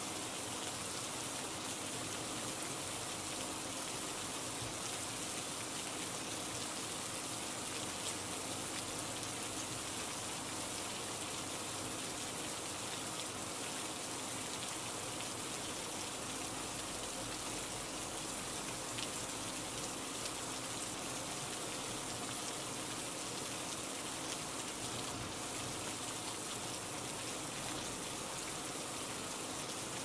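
Steady rain falling: an even hiss with a scattered patter of drops that does not change.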